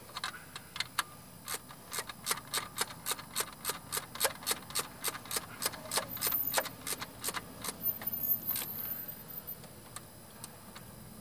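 A 1/4-inch ratchet clicking in a steady run, about three clicks a second, as it runs down a small 8 mm nut on a Civic Si alternator. The clicks thin out and stop near the end.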